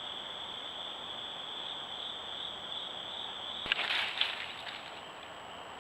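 Steady, high-pitched chorus of insects, with a brief crackling rustle about two thirds of the way in.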